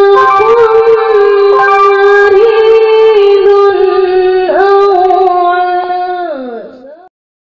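Quran recitation in the melodic tilawah style: a young reciter's high voice holds one long, ornamented note, then glides down near the end and cuts off suddenly.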